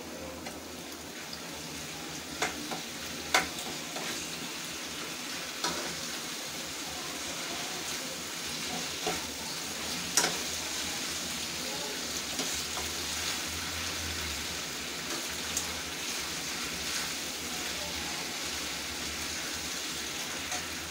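Pasta in red sauce sizzling steadily in a frying pan on a gas stove as it is stirred, with a few sharp knocks of the stirring utensil against the pan in the first half.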